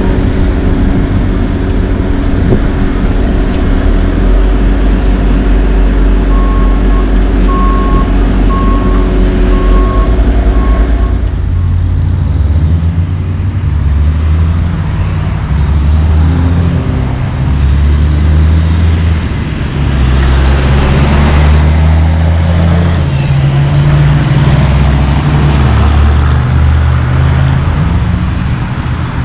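Paving machinery engines running with a backup alarm beeping, then a heavy diesel dump truck running loud as it pulls away and accelerates, its engine note stepping up and down over passing car traffic.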